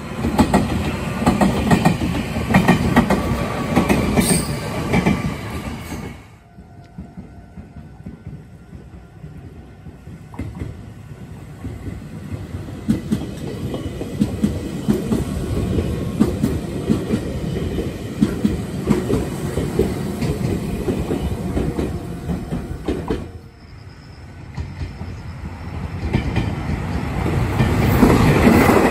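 Meitetsu electric trains passing close at trackside, wheels clattering on the rails: a 3300 series local, another silver train, then a 1200 series limited express swelling to its loudest near the end. The sound cuts off abruptly twice, about six seconds in and again about 23 seconds in, as one pass gives way to the next.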